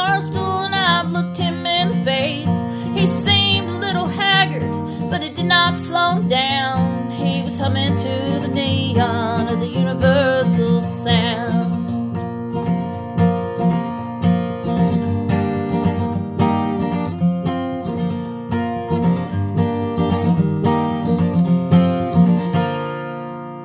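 Acoustic guitar strummed, with a woman's singing voice over it for about the first eleven seconds. The guitar then plays on alone and stops shortly before the end.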